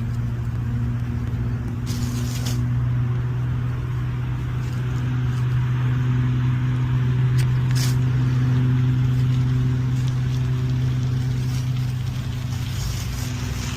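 A steady, low engine hum, as of an idling motor vehicle, with a few short sharp clicks over it.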